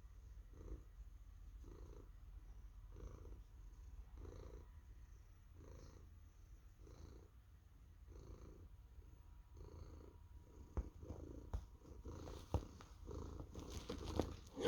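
Domestic cat purring, a soft purr that swells and fades about once a second with its breathing. A few sharp clicks and rustles come in near the end.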